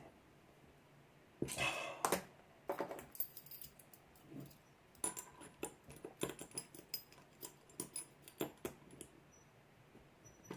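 Small metal tools and a padlock being handled on a workbench: scattered light clicks and clinks, with a brief rattle about one and a half seconds in and a run of small clicks in the second half.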